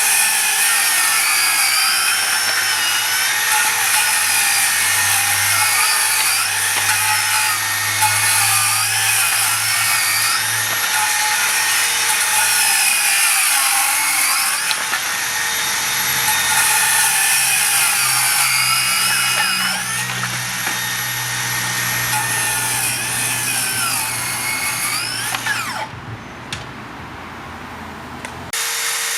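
HiKOKI 36V C3607DA brushless cordless circular saw running at speed with a high whine whose pitch wavers. It drops off about four seconds before the end.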